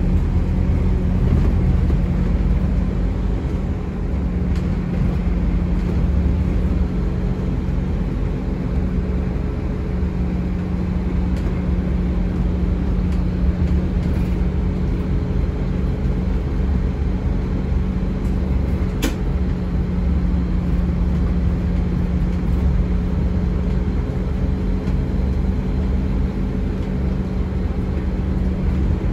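Scania N270UD Omnicity double-decker bus under way, heard from its upper deck: the 9-litre five-cylinder diesel engine runs with a steady low drone and hum, mixed with road rumble. One brief sharp click about two-thirds of the way through.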